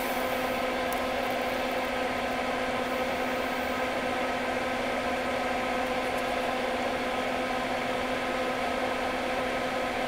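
Solder fume extractor fan running: a steady whir with a constant low hum.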